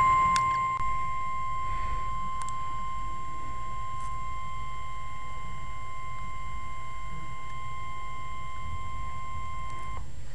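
NOAA Weather Radio warning alarm tone: one steady, high single tone of 1050 Hz held for about ten seconds, then cut off abruptly. It is the alert signal sent ahead of an urgent weather message, here a severe thunderstorm watch.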